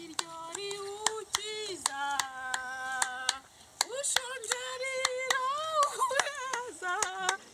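A woman singing alone, holding long notes that slide between pitches, while clapping her hands in a steady beat.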